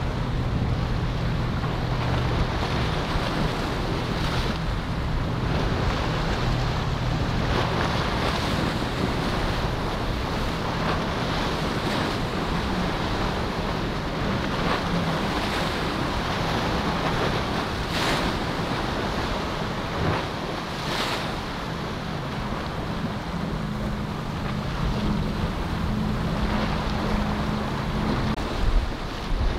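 Boat engines running with a steady low hum, under wind noise on the microphone and surf at the inlet, with several short, sharper rushes of water or wind noise.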